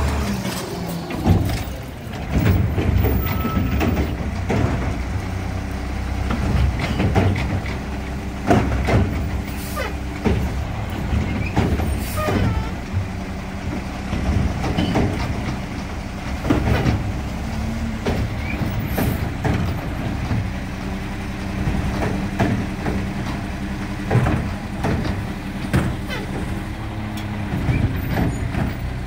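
Side-loading recycling truck running at work, its engine and hydraulics humming steadily, with repeated sharp metal clanks and bangs from the loading arm and carts; the loudest bang comes about a second in.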